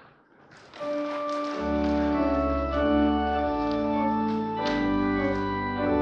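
Organ starting the postlude at the close of a church service. Sustained chords come in about a second in, and deep bass notes join shortly after.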